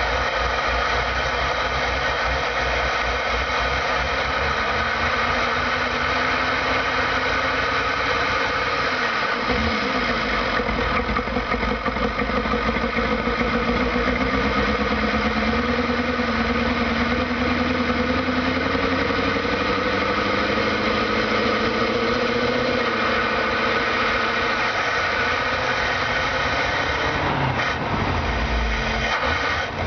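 Van's carbureted engine running with its air cleaner lid off, heard from inside the cab through the open engine cover. The revs rise and fall slowly as the throttle is worked while it warms up after being flooded.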